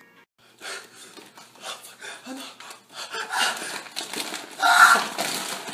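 A man coughing and gasping in a rapid, irregular series of harsh bursts that grow louder, the loudest about five seconds in.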